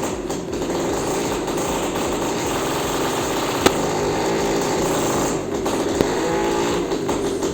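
Belarus MTZ-52 tractor engine running steadily with a rapid, rattly beat, with a sharp click about three and a half seconds in.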